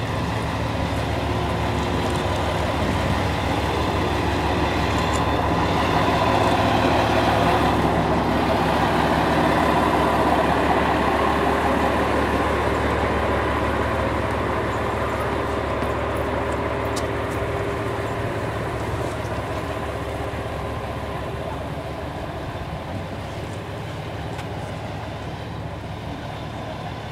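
Diesel railcar engine idling: a steady low drone with a hum above it. It swells about a fifth of the way in and fades slowly towards the end.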